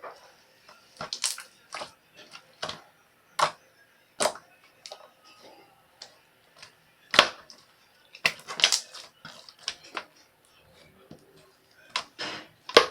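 Pink slime being squeezed and pressed by hand, giving irregular sharp clicks and crackly pops as air pockets burst.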